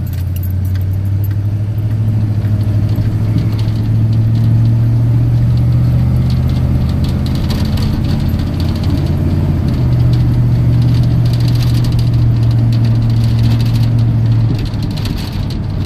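Old farm pickup's engine running under way, heard from inside the cab. The engine note pulls steadily, eases off about eight seconds in, pulls again, then drops off near the end as the throttle is let up.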